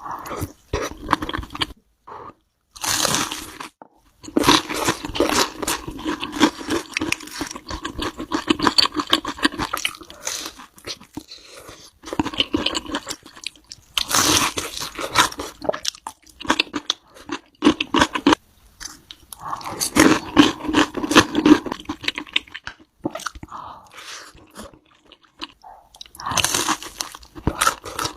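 Close-miked eating: loud crunchy biting and chewing of crisp food, coming in several bouts of a few seconds each with short pauses between them.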